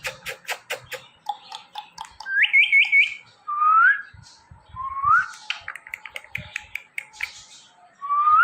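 Ringneck parrot whistling: a quick run of four rising notes, then several short upward-sliding whistles, with rapid clicking before and between them.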